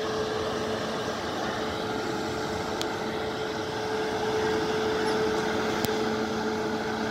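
WAP-7 electric locomotive standing with its auxiliary machinery running: a steady hum with a constant mid-pitched whine.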